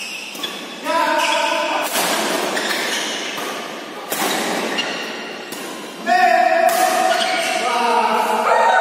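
Badminton rackets striking the shuttlecock in a rally: a few sharp hits about two seconds apart, over background music with long held vocal-like notes.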